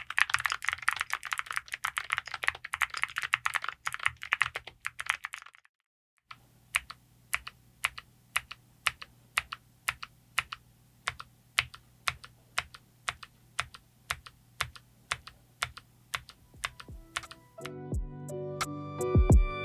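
Typing on a gasket-mounted TKD Cycle7 mechanical keyboard fitted with Cerakey alumina-ceramic keycaps: fast, dense typing at first, then after a short break single key presses at an even pace of about three a second. Music comes in near the end.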